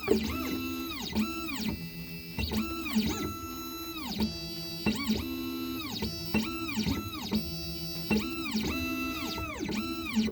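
Background music: a plucked, guitar-like melody of short repeated notes.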